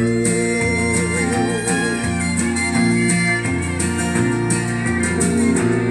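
Country backing music: a fiddle line with vibrato over guitar and bass, with a steady beat. A sung word comes in at the very end.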